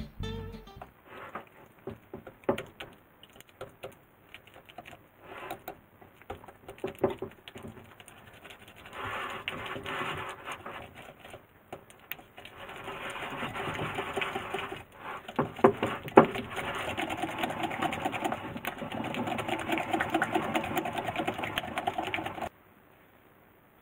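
Wire balloon whisk beating softened butter in a glass bowl by hand: fast, rhythmic scraping and clinking of the wires against the glass. Scattered taps at first, then steady rapid beating from about nine seconds in, which stops suddenly near the end.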